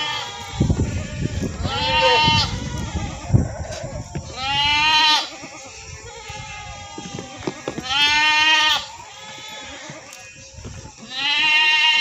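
Goat bleating four times, each call lasting about a second with a wavering, quavering pitch, spaced roughly three seconds apart. A low rumbling noise sits under the first few seconds.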